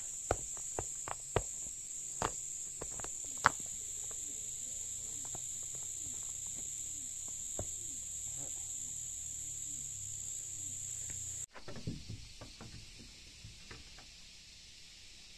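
Loose stones clacking against each other as rocks are set by hand into a stone paving, with separate sharp knocks over a steady high insect drone. About eleven seconds in the insect sound cuts off abruptly, and a few light knocks and scuffs follow at a lower level.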